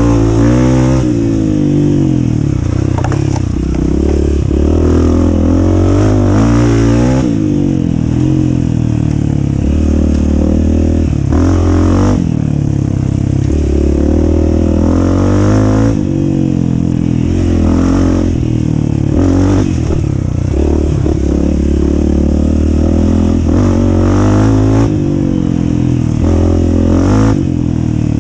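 Dirt bike engine revving up and down over and over as the throttle is worked on a rough off-road trail, with brief clattering knocks now and then.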